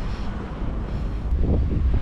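Strong winter wind buffeting the microphone, a heavy uneven rumble that swells and dips in gusts.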